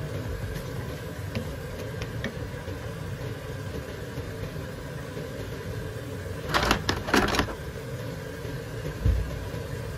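Shrimp in tomato sauce simmering in a frying pan, with a few faint bubbling pops over a steady low hum. About six and a half seconds in comes a brief loud noisy burst lasting about a second, and near the end a single low thump.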